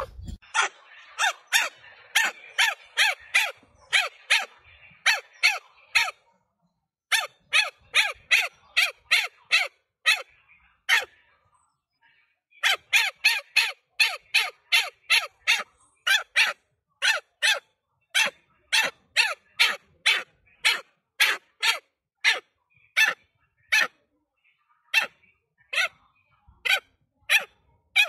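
Macaque giving a long series of short, sharp, high calls, about two to three a second, in runs broken by two brief pauses.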